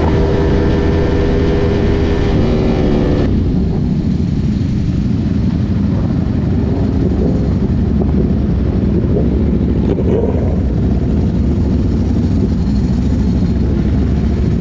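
Motorcycle engine and wind noise from a sportbike ridden in a group, a steady, dense low rumble. For about the first three seconds, held tones of background music sit over it and then stop abruptly.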